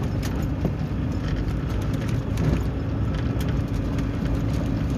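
Inside the cab of a 4x4 driving on a dirt track: steady engine hum and tyre rumble, with frequent small knocks and rattles from the bumpy ground.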